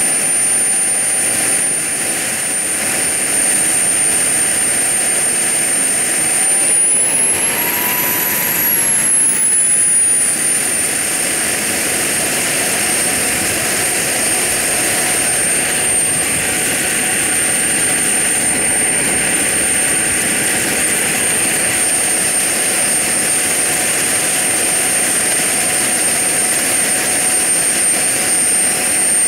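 Small model jet turbine running on the ground: a steady high-pitched whine over a rushing exhaust. About seven seconds in it spools up briefly, the whine rising, then drops back to the same steady pitch a few seconds later.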